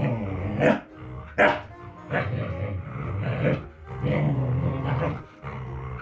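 Siberian husky puppy grumbling and "talking" in long, low stretches, with two sharp barks in the first second and a half. It is a jealous, playful demand for attention while another dog is being hugged.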